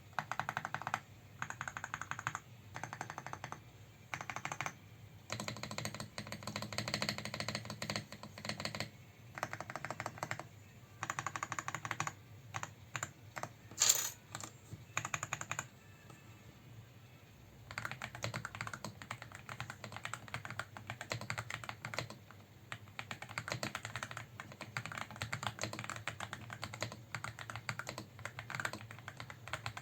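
Typing on an Aula F75 mechanical keyboard fitted with Reaper switches. Rapid keystrokes come in bursts of a second or two with short pauses, then settle into steadier continuous typing in the second half, with one sharper, louder clack near the middle.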